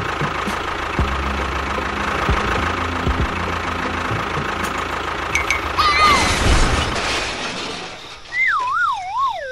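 Miniature tractor's engine running steadily with a low rhythmic knock, fading out about seven seconds in. About six seconds in comes a short whistling glide, and near the end a wobbling whistle that falls in pitch, like a cartoon sound effect.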